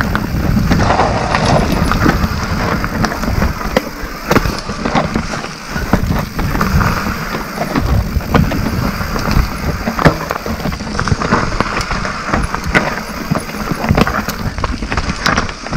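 Mountain bike rolling fast downhill over a dirt and stone singletrack: the tyres crunching over the ground, with frequent sharp knocks and rattles as the bike runs over rocks and roots, over a steady low rumble of wind on the microphone.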